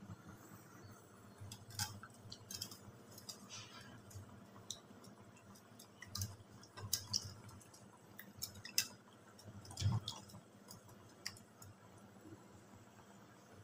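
A hand squeezing soaked tamarind in water in a steel bowl: faint, irregular small splashes and clicks of fingers against the metal, with a few soft thumps.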